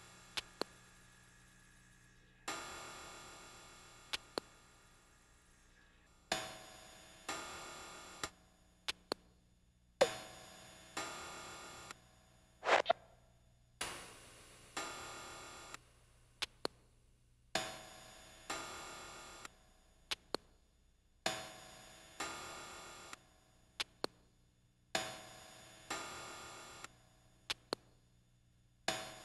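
Sparse instrumental music. Pairs of struck chords ring and fade, repeating about every four seconds, with pairs of sharp ticks between them, and one tone swells up about halfway through.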